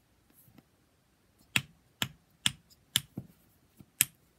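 Teal-green silicone snapper fidget toy squeezed over and over, giving a string of sharp snaps about two a second, starting about a second and a half in.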